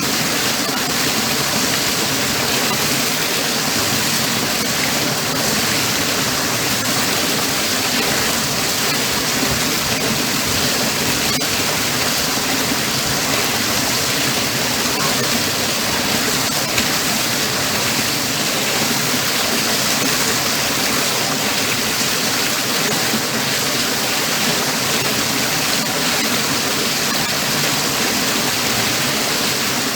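Spa pool waterfall feature: water falling steadily into the pool in a continuous, even splashing rush.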